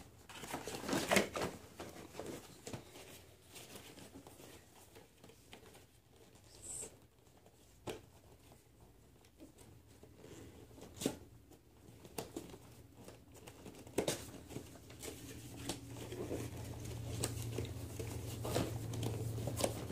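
Scattered rustles, crinkles and light clicks of action-figure packaging, cardboard boxes and plastic trays, being handled and opened. A steady low hum comes in over the last few seconds.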